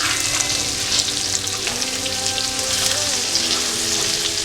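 Ground spices and ginger garlic paste frying in hot oil and butter in a pan, sizzling steadily, with small clicks and scrapes from a spoon stirring them.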